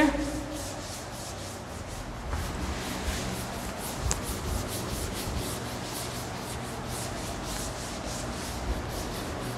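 A board eraser wiping chalk off a chalkboard: quick back-and-forth rubbing strokes that grow steady and regular from about two seconds in.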